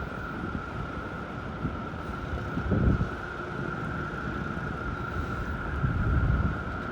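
Storm wind buffeting the microphone in low gusts, strongest about three seconds in and again near the end, over a steady high-pitched tone.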